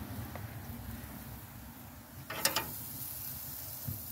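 Metal tongs clattering briefly against a gas grill's grate as a thick pork chop is laid down, about two seconds in, over a low steady rumble.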